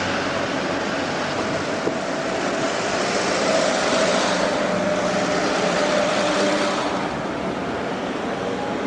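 Steady rain falling, with a machine engine running underneath that swells louder in the middle and eases off near the end.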